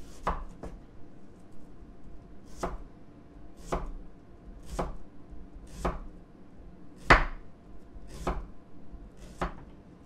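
Chef's knife rough-slicing a white onion on a wooden cutting board: a slow series of single chops through the onion into the board, roughly one a second, the loudest about seven seconds in.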